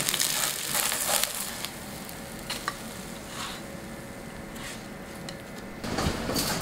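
A Korean chive pancake sizzling in oil in a nonstick frying pan, with a plastic spatula scraping and pressing it for the first second or two. The sizzle then runs on more quietly with a few light ticks, and a louder hiss comes in suddenly near the end.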